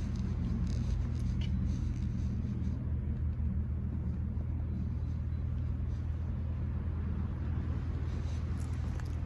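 Domestic cat purring steadily while being stroked on the head and neck, a low continuous rumble with a fast pulse: a sign of a content cat.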